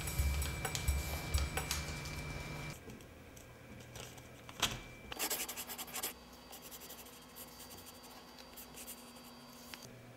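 A ballpoint pen scratching on paper as an envelope is written on by hand, with paper rustling and handling knocks on the table; the scratching is densest about five to six seconds in.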